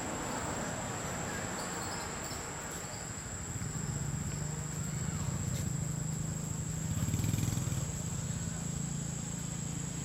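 Outdoor ambience: a steady, high insect drone, with the low hum of a motor vehicle's engine coming in about four seconds in and swelling a little past the middle.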